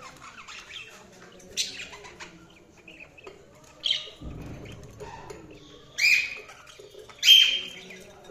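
Budgerigars chirping: four loud, sharp chirps about two seconds apart over a soft, continuous warbling chatter.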